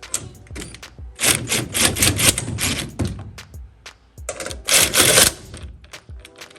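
Screws being driven down to fasten billet aluminium battery mounts: rapid mechanical clicking in two runs, a longer one from about a second in and a shorter one around five seconds in.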